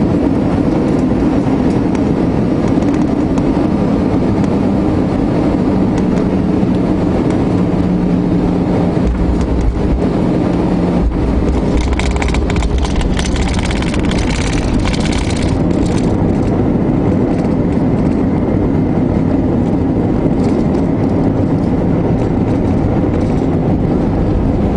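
Jet airliner's engines and rolling rumble heard inside the passenger cabin as the plane moves along a wet runway: a steady loud drone. A brighter hiss with crackling comes in for a few seconds from about twelve seconds in.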